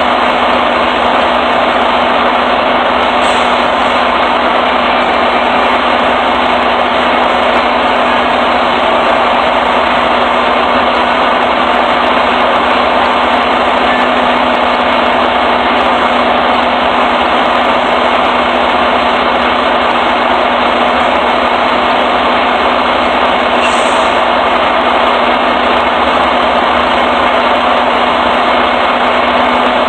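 Truck engine idling steadily, a constant hum with no change in speed.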